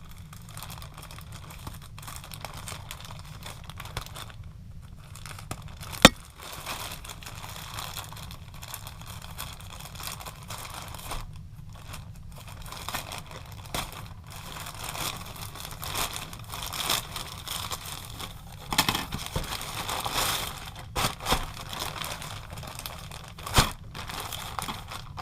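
Shipping packaging crinkling, rustling and tearing as a parcel is cut open and unwrapped by hand, in irregular bursts that grow busier in the second half, with a sharp click about six seconds in and another near the end.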